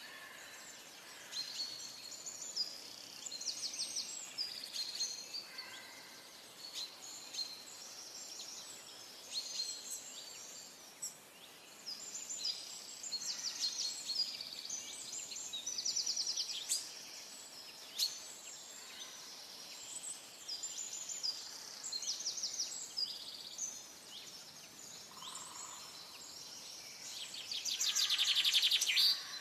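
A chorus of forest songbirds calling and singing, with many overlapping short chirps and trills and a louder, dense trill near the end. A faint steady hiss of a stream runs beneath.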